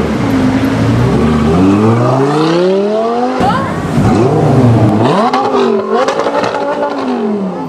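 Audi R8 V10 Plus's 5.2-litre V10, tuned to 630 hp with an aftermarket Per4mance exhaust, accelerating hard. The engine note climbs steeply, breaks off sharply about three and a half seconds in, then rises and falls several more times as the car passes close by and pulls away.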